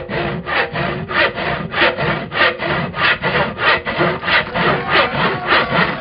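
Two-man crosscut saw cutting through a log, with fast, even rasping strokes about three a second.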